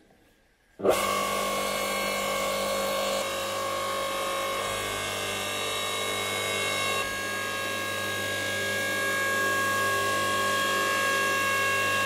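Blue Bird LS 65558 electric log splitter's 2200 W single-phase motor and hydraulic pump starting up suddenly about a second in, then running with a steady hum and whine. Its tone and level change slightly a few times as the ram is worked.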